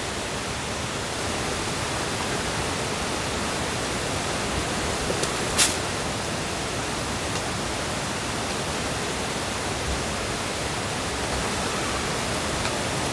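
A steady, even hiss, with one brief sharp click about five and a half seconds in.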